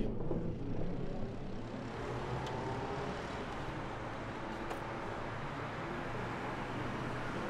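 Steady street traffic noise, an even background hum.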